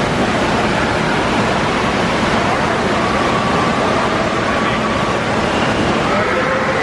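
Indoor water park ambience: a steady rush of running and splashing water mixed with the faint chatter of swimmers.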